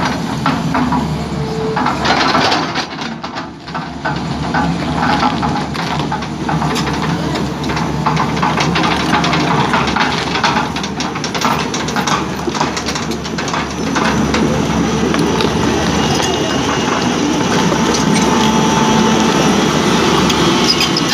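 Tata Hitachi excavator's diesel engine running, with repeated short knocks and clanks over it. It grows louder and steadier about two-thirds of the way through.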